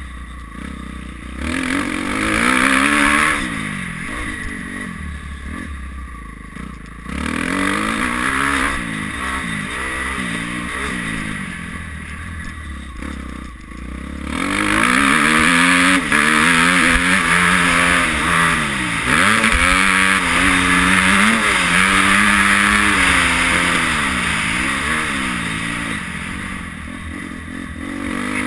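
Motocross dirt bike engine revving up and down again and again as the throttle is worked through the track's turns and straights, louder in the second half.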